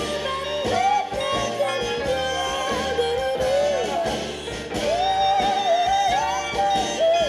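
A rock song with a singing voice and guitar, played through an Akkord 201 stereo amplifier and its speakers and picked up by a camera's microphone.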